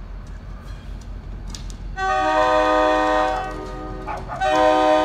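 Diesel locomotive's multi-chime air horn (NJ Transit GP40PH-2) sounds two long blasts over the low rumble of the approaching train. The first blast starts about two seconds in and the second near the end. The long-long opening fits a grade-crossing warning.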